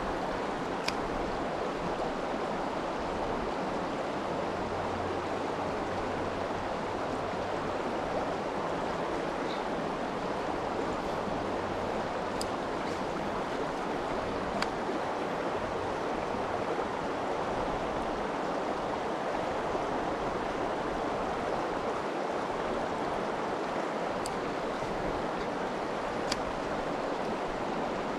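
Mountain stream rushing steadily over rocks, with a few faint clicks.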